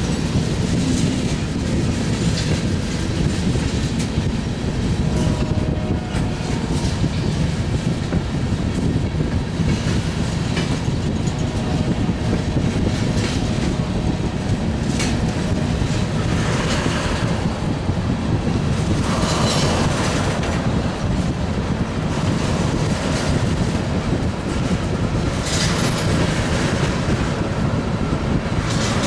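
Freight cars of a Norfolk Southern mixed freight train rolling past with a steady heavy rumble and the clickety-clack of wheels over rail joints. A few brief higher scraping sounds come about two-thirds of the way through.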